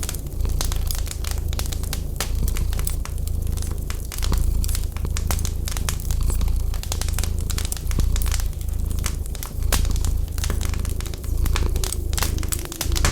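Wood fire crackling with dense, irregular snaps and pops, over a low purring rumble from a cat that swells and fades about once a second with its breathing.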